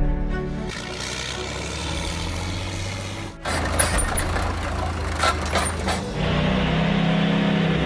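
Diesel engines of crawler dozers running in short clips, with a hard cut to a new clip every two to three seconds. In the middle an old small crawler dozer drives along, its steady engine note broken by a few sharp clanks.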